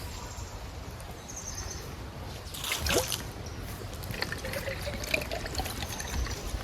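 Water pouring and trickling from a bottle into a cup, with a short knock about three seconds in.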